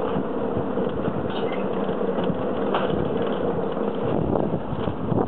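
Toboggan sled running down a stainless-steel summer toboggan chute: a steady rolling rumble and hiss, with a wavering tone through the first half.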